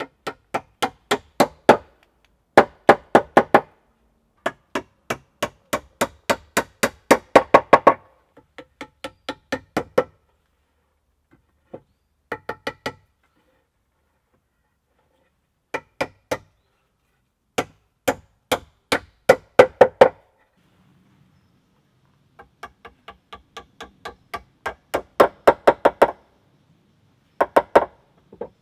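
Wooden mallet driving wooden pegs into drilled holes in round log slats: quick runs of ringing knocks, about four a second, each run getting louder toward its end, with short pauses between runs.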